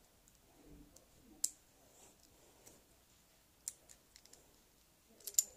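Small plastic toy pieces being handled: a few sharp clicks, one about a second and a half in, another near four seconds, and a quick cluster of clicks near the end, over faint rustling.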